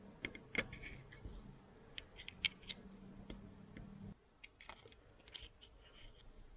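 Scattered light clicks and clinks of small metal parts being handled, the water pump's bearings and pieces on the workbench. A faint low hum in the background stops about four seconds in.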